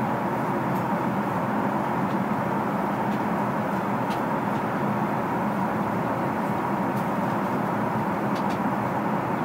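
Steady rushing cabin noise of an Airbus A380 in flight, a constant roar of air and engines with a faint hum in it. A few faint ticks sound over it.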